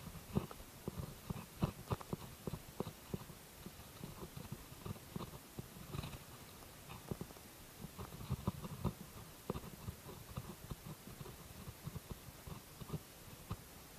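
Faint, irregular clicks and ticks from a spinning reel and rod being handled and worked while fishing a lure.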